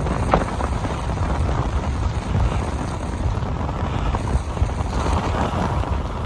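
Wind buffeting the microphone of a skier in motion, a steady low rumble, with skis hissing over groomed snow underneath it.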